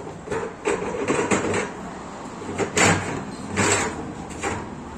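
Hand-operated pipe bender being worked: an irregular series of metal scrapes and clunks as its lever is moved and the steel pipe is bent, loudest near the middle.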